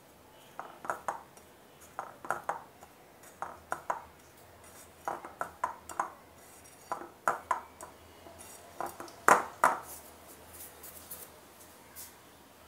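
Hand mixing flour and dry ingredients in a ceramic bowl, with repeated light clinks and taps against the bowl in small groups about once a second, the loudest about nine seconds in.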